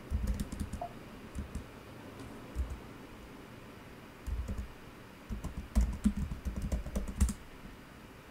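Computer keyboard typing in short bursts of keystrokes with pauses between them. The busiest run of keys comes about five to seven seconds in.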